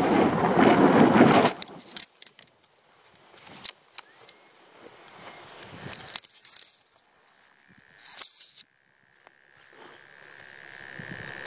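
Wind rushing over the microphone during a paraglider's final glide, cutting off abruptly about a second and a half in as the pilot touches down. Then come footsteps on grass and the rustle and clinking of harness gear and lines being handled, with scattered clicks.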